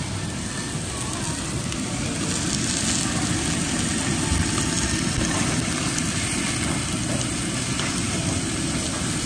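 Heavily marbled beef steak sizzling on a hot tabletop barbecue grill, over a steady low rumble. The sizzle gets a little louder about two seconds in.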